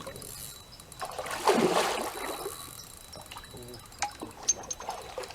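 Water splashing about a second in, fading into a trickle, with two sharp clicks near the end.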